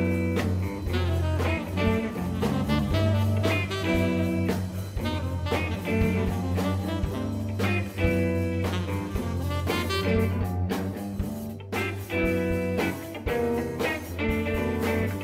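Background music in a blues or jazz style, with guitar, bass and a steady beat.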